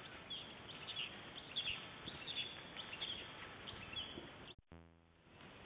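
Birds chirping and twittering in quick short calls over a steady outdoor hiss; the sound drops out abruptly about four and a half seconds in and stays quieter after.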